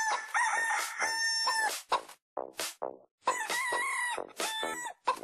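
A rooster crowing sound, two long drawn-out crows, over a dance-music beat of short regular hits.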